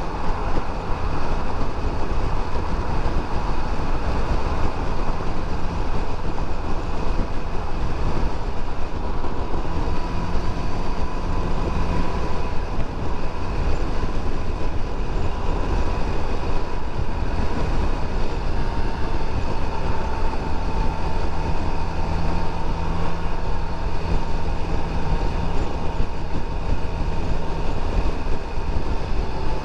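Heavy wind rush on the microphone of a Suzuki Burgman 650 maxi-scooter at highway speed, with the engine droning underneath.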